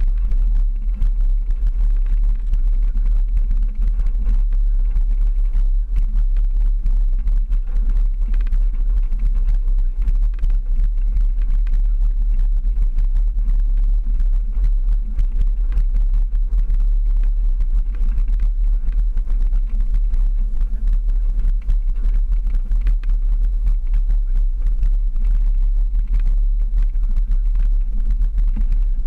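Jeep driving slowly up a rough dirt mountain trail: a steady low rumble of engine and drivetrain, with small scattered knocks from the rough ground.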